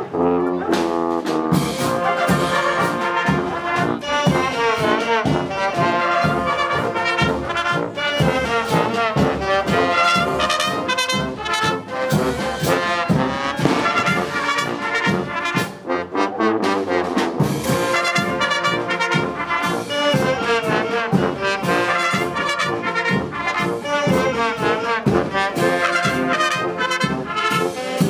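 Brass band playing a tune with a steady beat: trumpets and trombones carrying the melody over low brass such as a sousaphone.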